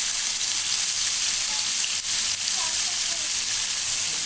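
Marinated fish pieces shallow-frying in a few spoons of hot oil in a pan, a loud steady sizzle.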